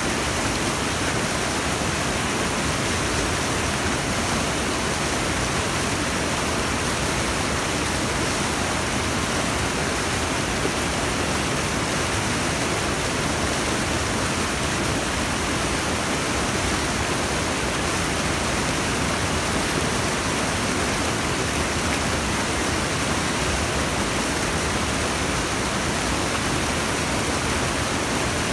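River whitewater pouring over rock ledges in a small cascade: a steady, unbroken rush of water.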